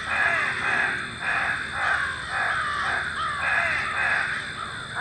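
Many crows cawing at once: a dense chorus of harsh, overlapping caws, two or three a second.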